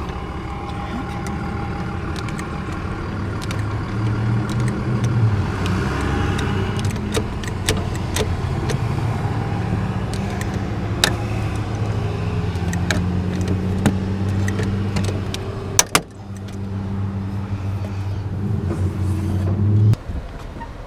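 A motor vehicle's engine running, its low hum shifting in pitch now and then, with sharp clicks and rattles over it; the sound drops away suddenly about a second before the end.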